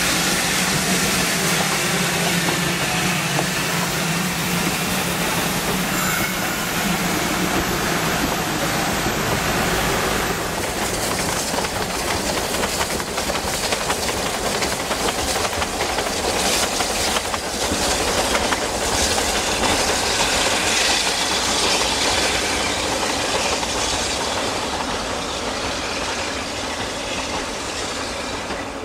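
Steam-hauled train running along the rails: a steady rushing noise with wheel clatter over the rail joints.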